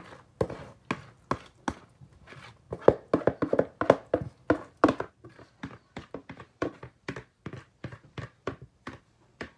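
A spoon knocking and scraping against a dish as a rice-and-broth mixture is spooned out: a quick run of short taps with a little ringing, most crowded about three to five seconds in.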